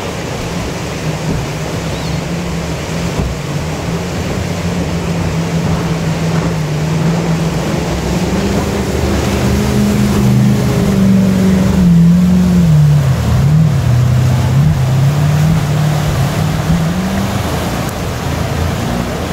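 Racing jet boat's engine running hard as it climbs through river rapids, growing louder, passing closest about halfway through with the revs wavering up and down, then fading away. Under it the steady rush of whitewater.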